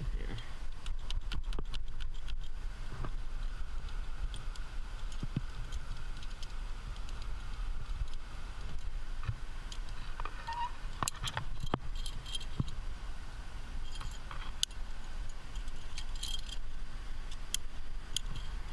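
Metal climbing gear, carabiners and cams on a harness, clinking and jangling in scattered bursts over a steady low rumble.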